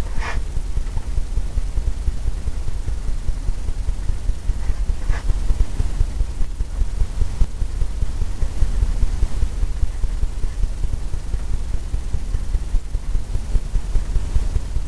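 A steady low rumble of background noise, with two faint short clicks, one just after the start and one about five seconds in.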